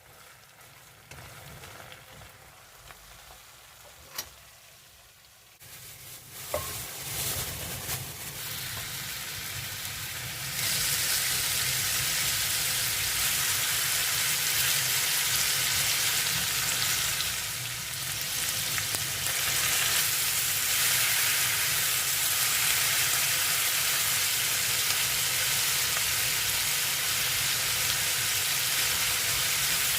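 Food sizzling in a hot frying pan. After a quiet start with a single click, the sizzle builds and from about ten seconds in runs loud and steady.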